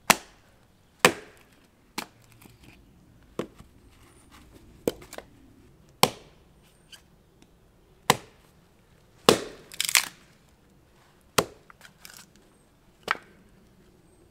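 Hatchet chopping and splitting short firewood rounds: about a dozen sharp wooden chops at an irregular pace, one to two seconds apart, with several quick strikes together near ten seconds.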